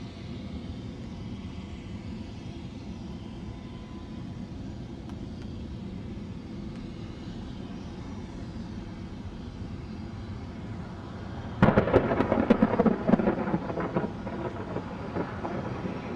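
A Boeing 747 Classic's four jet engines rumbling steadily during its takeoff. About twelve seconds in, a sudden much louder crackling rush breaks in and fades over the next few seconds.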